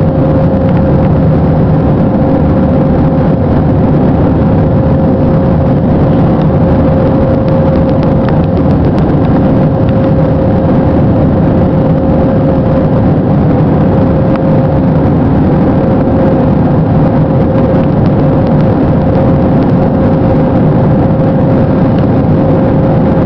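Steady loud drone of an airliner's jet engines and rushing air, unchanging throughout, with a constant mid-pitched hum running through it.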